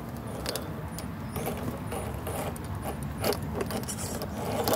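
Radio-controlled scale crawler climbing a dirt slope: its small electric motor and gearbox run steadily under repeated clicking and rattling from the truck, which is loudest near the end.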